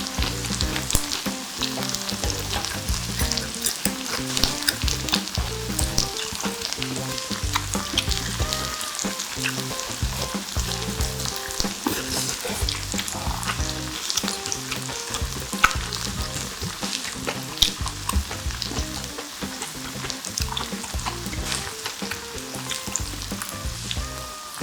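Pork intestines (makchang) sizzling and crackling as they grill in a pan, with frequent sharp pops.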